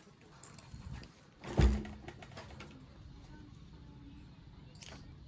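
A single sharp knock about a second and a half in, with a short low ring after it, over faint scattered clicks of handling.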